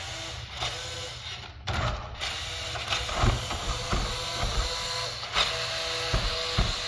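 Rastar 1/16 GMC Hummer EV RC truck driving, its electric drive motor and plastic gearbox giving a steady mechanical whine, with a few sharp knocks in the second half.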